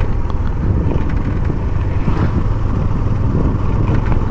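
Motorcycle running steadily while being ridden on the road, a continuous low hum.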